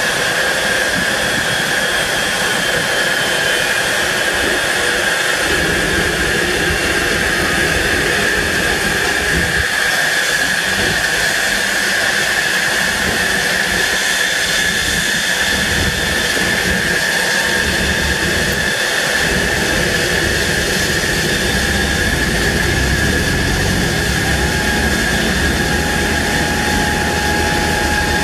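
Jet aircraft turbine running steadily, a constant high whine over a rushing hiss.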